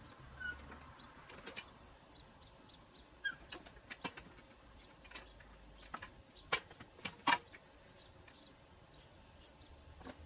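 A few sharp knocks and clicks from a wooden board being shifted and set on folding workbenches, with faint bird chirps in the first few seconds.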